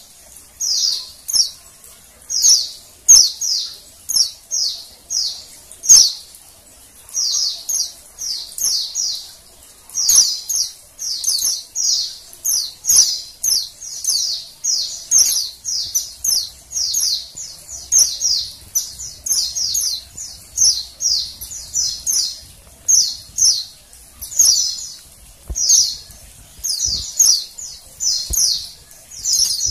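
Female white-eye (pleci) calling: quick, high-pitched trilled chirps in short bursts, about one or two a second, without pause. A few sharp clicks cut in, the loudest about three and six seconds in.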